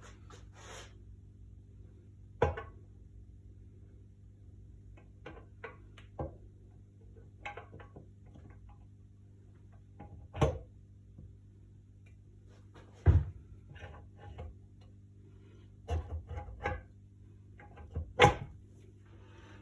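Scattered clicks and knocks of metal engine parts and tools being handled while the crankcase halves are readied with sealant, five of them louder, over a steady low hum.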